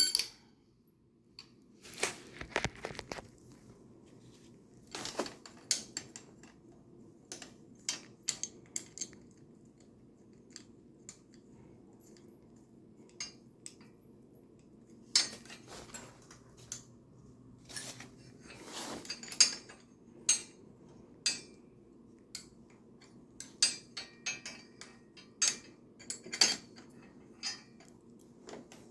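Metal bike rack parts and fittings being handled and fitted: scattered light clinks, clicks and short scrapes, irregular throughout, over a faint steady hum.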